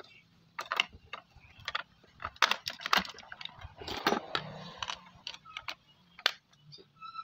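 Plastic clicks and knocks of large batteries being pushed into a portable radio's battery compartment and its plastic cover being fitted shut, with a short scraping rustle about four seconds in.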